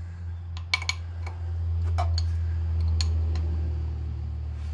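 A few light metallic clinks of tools and engine fittings being handled, over a steady low rumble that swells in the middle.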